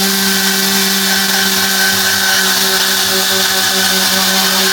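Tornador pneumatic cleaning gun running on compressed air: a loud, even hiss of air with a steady hum held at one pitch.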